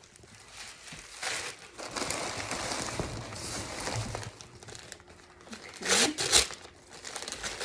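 Packaging being crinkled and torn open by hand as a gift box is unwrapped, with a louder burst of crackling about six seconds in.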